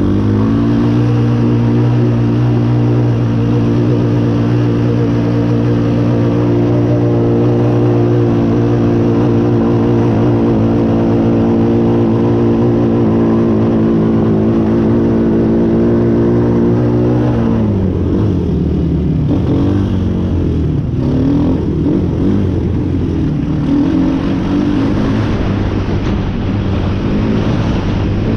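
An off-road vehicle's engine running at steady revs for about seventeen seconds, then dropping off and rising and falling unevenly.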